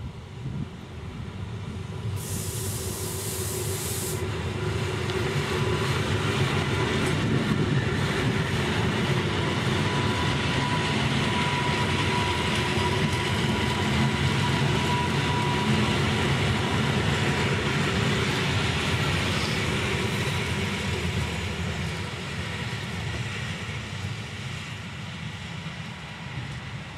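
Modernised EN57ALc electric multiple unit running past on the rails: a rumble of wheels and running gear that swells as it comes close and fades as it moves away. A brief high hiss about two seconds in, and a faint steady whine around the middle.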